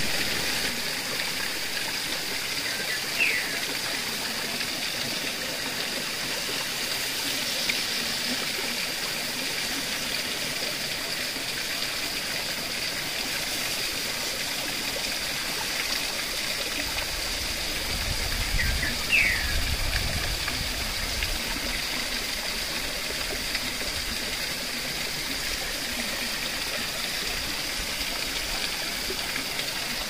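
River water flowing steadily. Two short, high, falling chirps come through it, and about two-thirds of the way through there is a brief low rumble.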